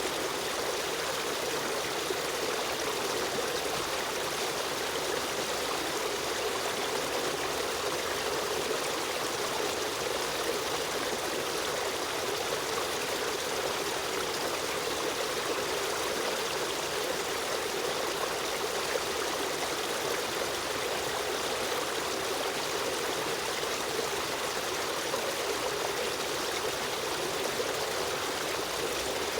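Shallow river stream running steadily, an even rush of water with trickling.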